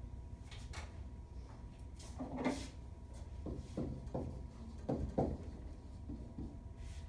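A dry-erase marker writing on a whiteboard: a run of short squeaky strokes in the middle. Before them, about two and a half seconds in, comes a louder scrape and shuffle as someone gets up from a chair and steps to the board, and a faint steady hum runs underneath.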